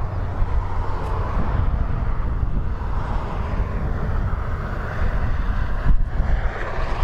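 Boeing 787-9 Dreamliner's Rolls-Royce Trent 1000 jet engines running at low taxi power, a steady rushing sound, with wind rumbling on the microphone.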